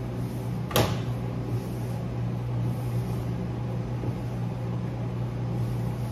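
A steady low hum, with one sharp knock a little under a second in.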